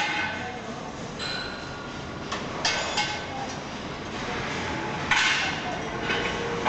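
A few sharp knocks and clinks over steady background noise.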